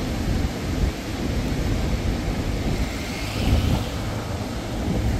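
Rough, storm-swollen surf breaking along the beach: a loud, continuous, uneven rumble of waves with a hissing wash over it.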